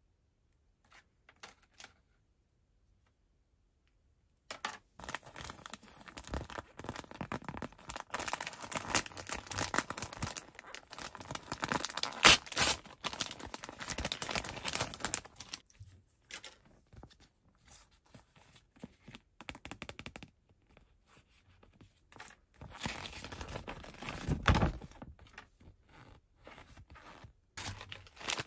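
Yellow foil blind-bag wrapper being crinkled and torn open by hand, in long stretches of crackling with sharp clicks. The first few seconds are almost silent apart from a couple of faint clicks, and a dull thump sounds about two thirds of the way through.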